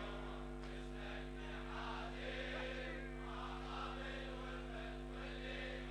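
Faint group chanting of a lament refrain in the background, over a steady held drone.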